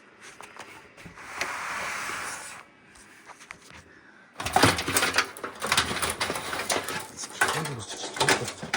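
PC case and cables being handled: a short scraping rush, then from about halfway a dense run of clicks, knocks and plastic-and-metal rattles as cables are pulled aside.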